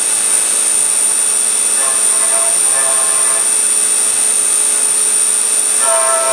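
CNC milling machine cutting: the spindle and end mill run with a steady high whine over the cutting noise. A pitched ringing from the cut comes and goes twice.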